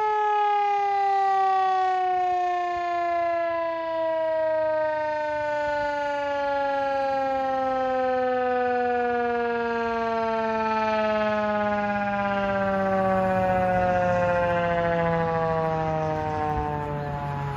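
Outdoor tornado warning siren winding down after a drill: one tone with a rich set of overtones, falling slowly and steadily in pitch throughout as the rotor coasts down.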